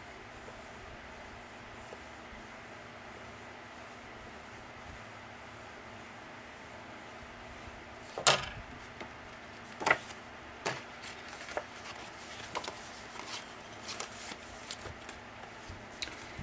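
Bone folder rubbing softly along the edge of a card page for about eight seconds, then a sharp clack as a tool is set down on the plastic cutting mat, followed by a second knock and a run of light taps and paper rustles as the card pages are handled.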